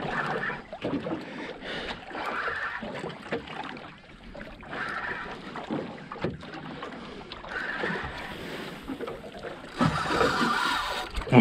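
Water sloshing and lapping against the hull of a small boat, coming in irregular surges.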